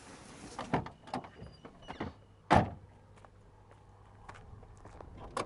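A passenger getting out of a car: latch clicks and rustling, then a car door shutting with one heavy thump about two and a half seconds in, followed by a low steady hum.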